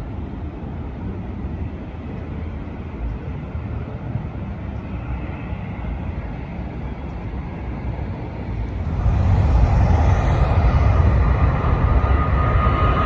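Jet airliner engines on landing approach: a steady distant rumble that swells sharply about nine seconds in as the jet comes close, with a steady high engine whine building near the end.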